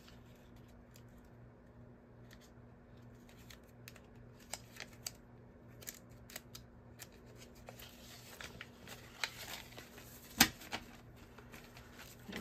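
US paper dollar bills being handled and sorted by hand: soft crisp rustles, flicks and ticks of the notes, busier in the second half, with one sharper click about ten seconds in.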